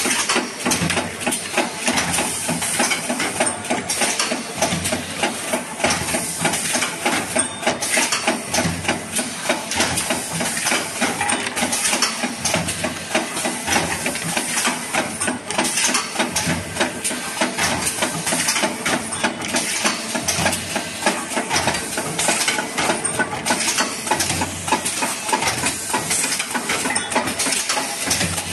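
JBZ-500E 30-ton hydraulic paper plate machine running: steady mechanical clatter and dense clicking over a hiss, with a low thump about every two seconds.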